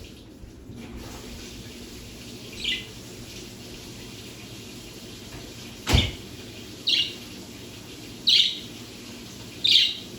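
Budgerigar giving short, sharp chirping calls: one a few seconds in, then three more close together in the second half. A single sharp click comes about halfway through.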